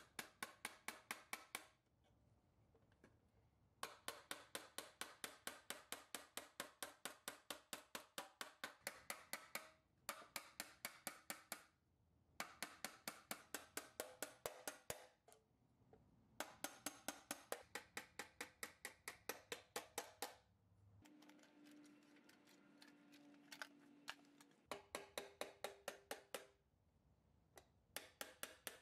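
Small brass-faced hammer tapping tiny nails through the sheet-metal side of a 1954 Tonka Grain Hauler toy trailer into its plywood floor. The light taps come about four or five a second in runs of several seconds, separated by short pauses.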